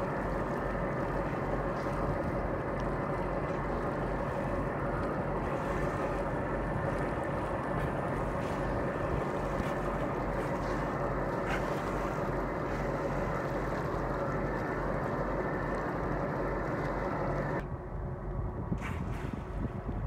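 Boat motor running steadily, with wind on the phone microphone; the sound drops a little about 17 seconds in.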